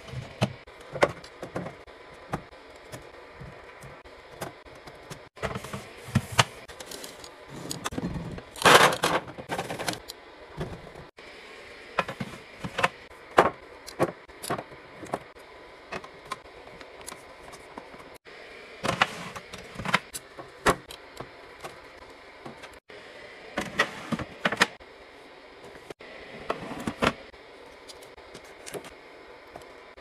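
Plastic food-storage containers and clear plastic fridge bins being handled and set down: a run of irregular clicks, knocks and light scrapes. The busiest stretches come about nine, twenty and twenty-five seconds in.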